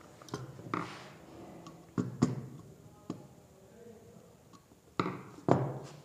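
Several sharp knocks and taps of a screwdriver and a small wooden switchboard being handled on a hard tabletop, the loudest about two seconds in and near the end, with a brief rustle of notebook paper about a second in.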